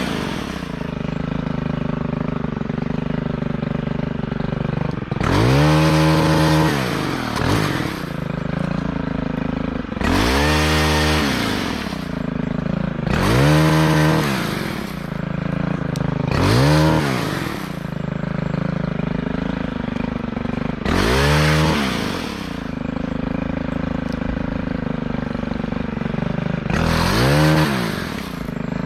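Gas chainsaw idling and revving up about six times, each rev rising and falling in pitch over a second or two, as it cuts limbs.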